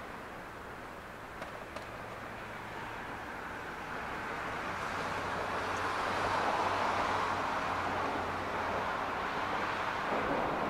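Yard switcher (small shunting locomotive) running at a distance as it slowly moves a string of 115 series cars: a steady low hum under a rushing noise that grows louder about halfway through.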